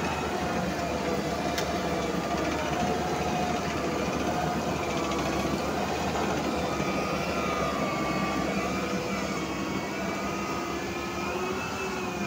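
Aggregate spreader running steadily, its engine and auger giving a constant machine drone with a whine that wavers slightly in pitch.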